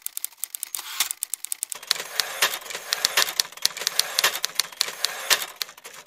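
Typewriter sound effect: a fast, uneven run of sharp key clacks, growing fuller about two seconds in.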